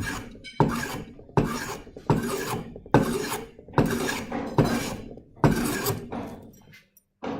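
Hand plane shaving along the edge of a wooden blank clamped in a vise, in about eight quick, even push strokes, each starting sharply and fading off. The strokes stop about seven seconds in.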